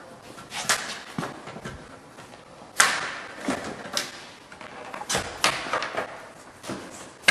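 A string of sharp clicks and knocks as a plastic bottom seal strip is handled and fitted at the lower edge of a glass shower door and its aluminium frame. The loudest knock comes about three seconds in.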